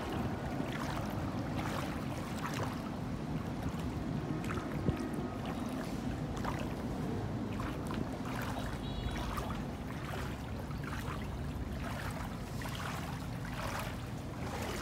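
Floodwater sloshing and splashing around someone wading through it, with irregular splashes a second or so apart over a steady wash of water.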